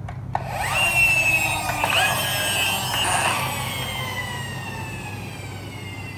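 Battery-powered toy delivery scooter driving across a tiled floor while its electronic sound effects play: pitch sweeps that rise and fall over the first few seconds, then a long tone that slowly falls in pitch.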